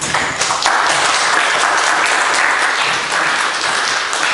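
Congregation applauding: many people clapping together in a dense, steady patter.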